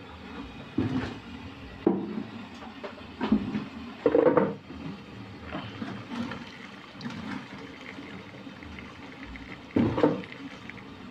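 Plastic colander scooping soaked soybeans and water in a tub, with a sudden slosh each time it dips in during the first few seconds and another near the end as beans and water pour back off it.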